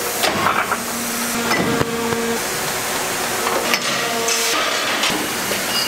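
Steady foundry machinery noise, a hiss with a faint hum, broken by a couple of short knocks, the sharper one a little past halfway.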